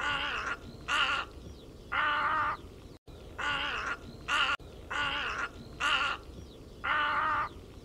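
Little egret calling: about eight harsh, gargling croaks, longer ones alternating with short ones, with a brief cut in the recording about three seconds in.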